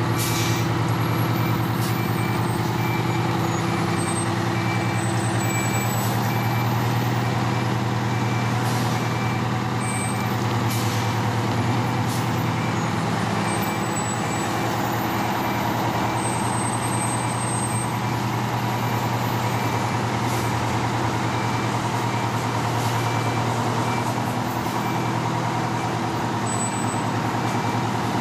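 Tiller ladder fire truck's diesel engine idling steadily, with a faint high beep repeating evenly throughout and a few short hisses now and then.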